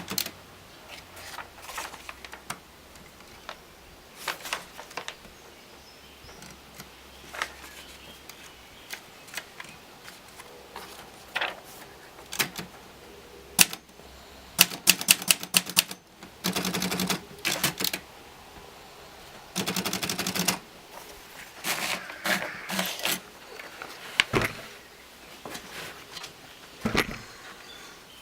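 Olivetti Lettera DL typewriter being operated: keys strike singly and in quick runs, with two longer stretches of rapid ratcheting clicks a little past halfway.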